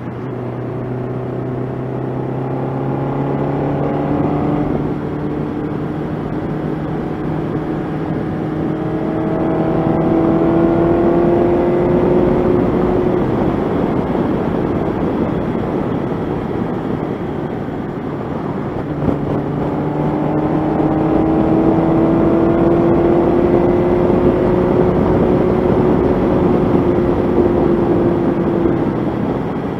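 1985 Honda CB700SC Nighthawk's inline-four engine pulling on the open road, with rushing wind. Its note climbs slowly through the first dozen seconds and drops back for a few seconds. About two-thirds of the way in it climbs again, getting louder.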